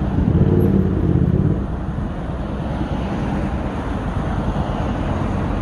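A motor vehicle's engine running close by, with a low hum loudest in the first second or so, then settling into a steady rumble of road noise.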